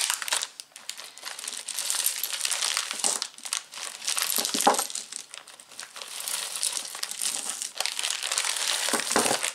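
Crinkling and rustling of a jewelry bag being opened and rummaged through by hand, a steady run of small crackles with a louder crackle about halfway through.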